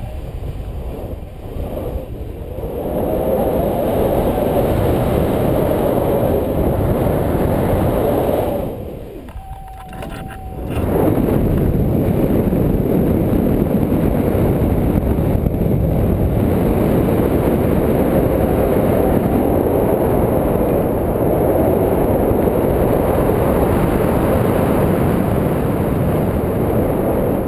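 Wind rushing over an action camera's microphone on a paraglider in flight: a loud, steady rumble that drops away for about two seconds a third of the way in, then returns.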